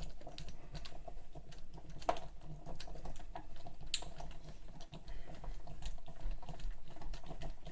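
Hand screwdriver turning screws into a door handle's backplate: irregular small clicks and ticks of the blade in the screw heads and metal plate.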